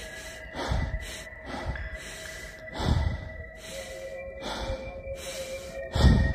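Breathing close to the phone's microphone: several loud breath puffs, each with a low rumble of air on the mic, the loudest near the end. Thin steady tones hold underneath.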